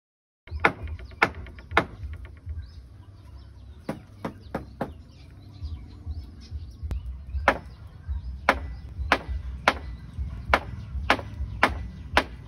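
Hammer blows on a wooden beam: sharp single strikes at uneven spacing, some in quick runs of two or three.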